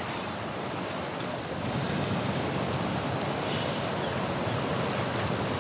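Sea waves washing steadily with some wind, getting slightly louder about two seconds in.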